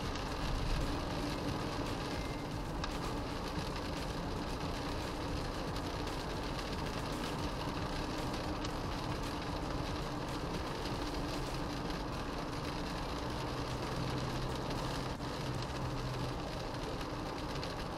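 Steady road noise inside the cabin of a 2019 Subaru Forester X-Break cruising on a wet expressway: the tyres on the wet surface and the car's running drone.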